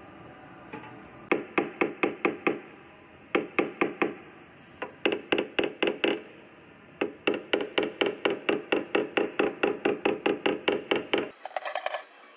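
Hammer strikes on a car's steel quarter panel, as in dent repair: quick, even blows of about five a second in several runs with short pauses between them. Near the end they change to lighter, higher taps.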